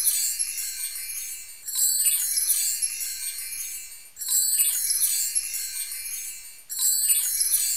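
A sparkly, high-pitched chime sound effect from a subscribe-button end card. It restarts about every two and a half seconds and fades between strikes, then cuts off suddenly at the end.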